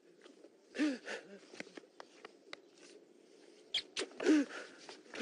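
A man sobbing in grief: gasping, wheezing breaths broken by short choked cries, the loudest about a second in and again near the end.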